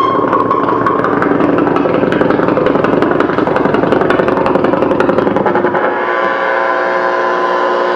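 Live harsh-noise performance: a dense wall of electronic noise, crackling with rapid clicks over several held buzzing tones. About five and a half seconds in, the deep low end drops away, leaving a thinner layer of stacked steady tones.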